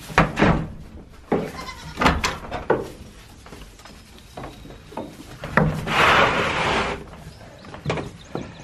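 Goats and young kids bleating, with several sharp knocks in the first few seconds and again about two-thirds through, followed by a rasping noise lasting about a second.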